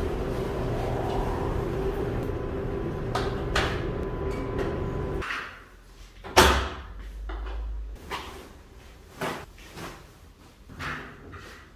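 Steady machine hum that cuts off about five seconds in. Then the door of a front-loading Electrolux coin-laundry washer shuts with a loud bang, followed by a few lighter clicks and knocks of door latches and handling.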